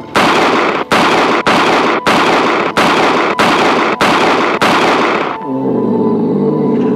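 Radio-drama gunshot effects: eight shots fired in quick succession, about one and a half a second, each loud with a short fading tail. After the last shot, music with low held notes comes in.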